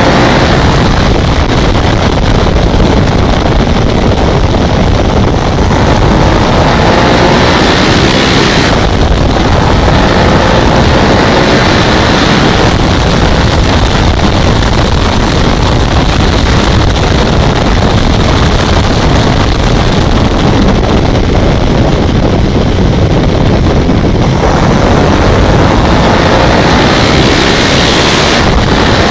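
Ducati ST4S V-twin engine running under way, heard through loud wind buffeting on the microphone. The engine note climbs as the revs rise at the start and again near the end.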